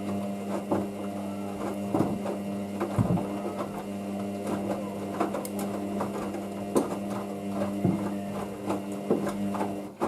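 Hoover DYN9144D3X washing machine on its main wash, its motor humming steadily as it turns the drum. The load knocks irregularly inside the drum. The motor stops at the very end as the drum pauses.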